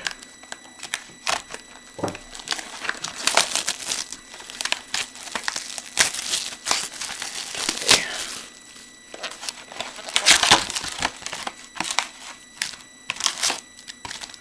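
Plastic trading card packaging being torn open and crinkled by hand: an irregular run of sharp crackles and rustles.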